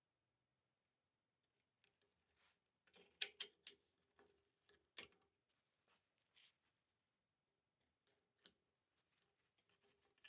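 Faint clicks, taps and scrapes of steel jack parts being handled during disassembly, with a cluster of louder clicks about three seconds in and a sharp one at five seconds, some leaving a brief metallic ring.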